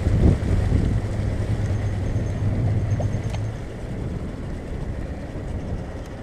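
Boat engine humming low under wind and water wash; the hum fades out about halfway through and the sound grows quieter.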